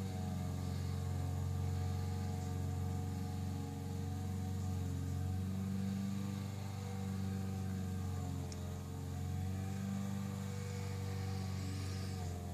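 Honda four-stroke petrol lawnmower engine running steadily.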